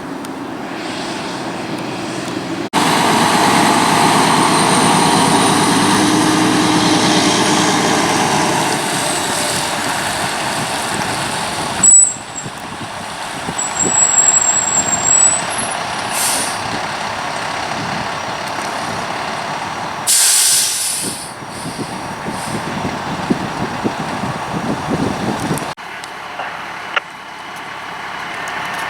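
Fire truck diesel engines running, with short hisses of air brakes, one loud burst about twenty seconds in.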